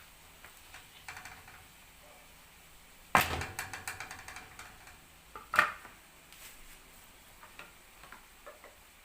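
Kitchen handling noise: a sudden clatter about three seconds in that trails into a quick run of rattling clicks, then a second sharp knock a couple of seconds later.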